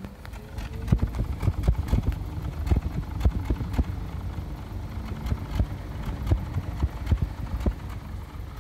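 2001 Honda Civic's exhaust at idle, heard at the tailpipe: a low rumble broken by uneven pops and puffs, a few a second. This is the exhaust sound the owner shows as the car's problem.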